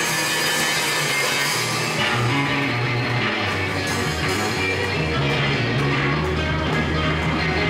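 Live band playing an instrumental passage with no vocals: electric guitar over an electric bass line that steps between notes, with a drum kit keeping time.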